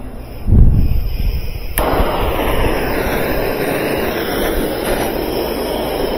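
Bernzomatic hand torch being lit: a low thump, then a sharp click about two seconds in as the flame catches, followed by the torch burning with a steady hiss.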